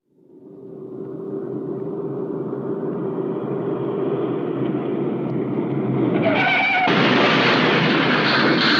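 Old cartoon sound effect: a noisy rumble that fades in from silence and swells steadily, growing louder and brighter about six seconds in.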